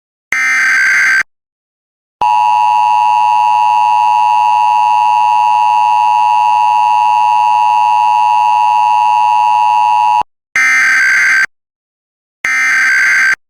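Emergency Alert System tones. A harsh, buzzy SAME digital data burst lasts about a second. Then comes the steady two-tone EAS attention signal, held for about eight seconds, followed by two more one-second data bursts near the end.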